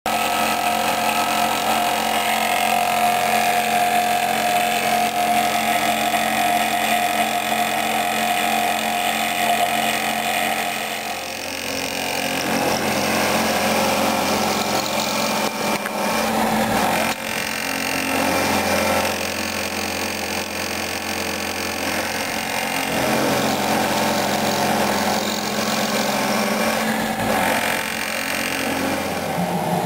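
Milling machine cutting an aluminium plate with an end mill: a steady spindle whine mixed with cutting noise. The tone shifts about eleven seconds in and again about seventeen seconds in.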